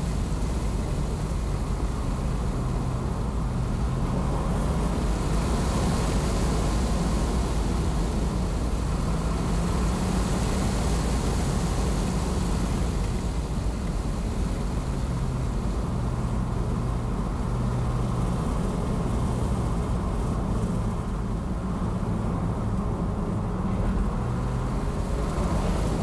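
Wind rushing and buffeting through the open front windows of a 2021 Tesla Model S Plaid at track speed, around 75–80 mph, mixed with tyre and road noise. A low hum wavers in pitch underneath.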